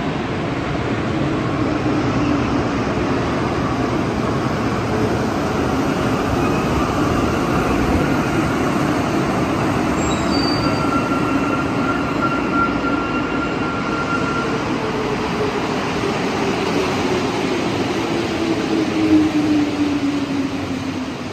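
Santiago Metro NS-93 and NS-16 trains running through an underground station. A steady rumble of train noise carries a whine that slowly falls in pitch. About halfway through, a thin high squeal lasts a few seconds, and the sound gets loudest near the end as a train passes close.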